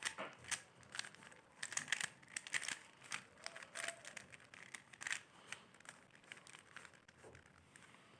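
Plastic Rubik's cube being twisted by hand to scramble it: a quick, irregular run of clicking and rattling as the layers turn, thinning out near the end.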